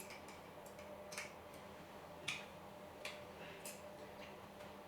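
Faint, irregularly spaced light clicks of small metal parts being handled as the collet on a mini metal grinding machine is tightened by hand.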